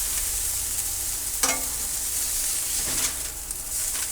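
Food sizzling on a Blackstone flat-top griddle: a steady high frying hiss, with two brief clinks about a second and a half and three seconds in.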